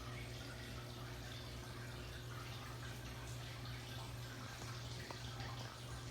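Aquarium water trickling and bubbling over a steady low hum from the tank's running equipment.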